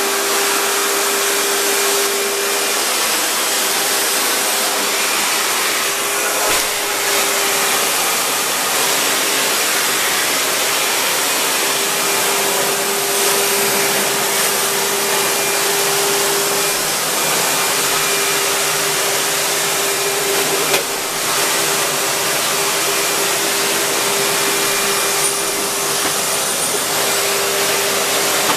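Vacuum cleaner running steadily: a loud, even rush of air with a constant motor hum, unchanging throughout.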